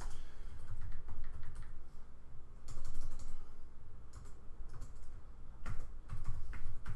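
Typing on a computer keyboard: irregular runs of key clicks with a few soft low thuds.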